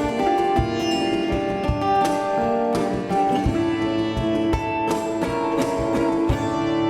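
Live Indian–Latin fusion music: sitar and guitar playing plucked melodic lines over a steady beat of hand percussion.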